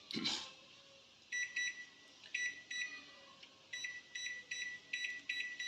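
LG convection microwave's control panel beeping as its button is pressed over and over: a run of short high beeps in small clusters, each press stepping to the next auto-cook code.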